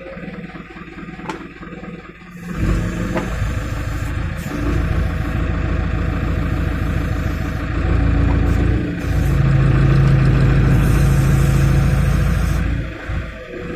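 Mobile crane's engine revving up about two and a half seconds in and held at raised revs with a steady low hum, then dropping back near the end.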